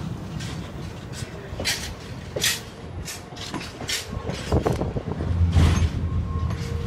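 Empty Freightliner coal hopper wagons rolling slowly past, their wheels clicking and knocking irregularly over the rail over a steady low rumble. The rumble swells louder about five seconds in.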